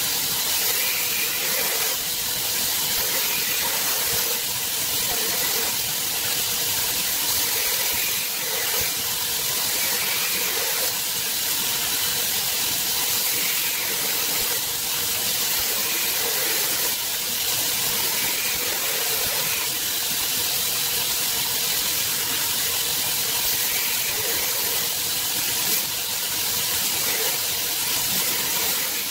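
Belt grinder running with a steel knife blade held freehand against the moving abrasive belt, grinding a bevel: a steady, even hiss.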